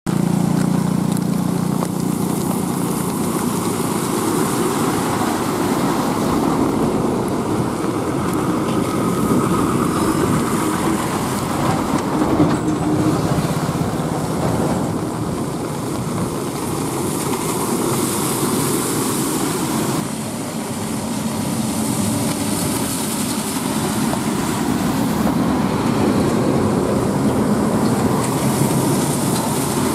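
Heavy diesel goods lorries driving past on a wet highway: a low engine drone with the hiss of tyres on the rain-soaked road, swelling and fading as each lorry approaches and passes.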